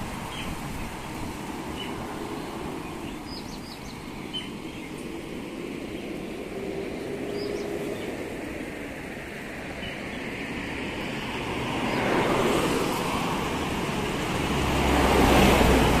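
Road traffic passing on a nearby road: a steady hiss and rumble of tyres and engines. About three quarters of the way in it grows louder as a heavier vehicle comes past, loudest near the end.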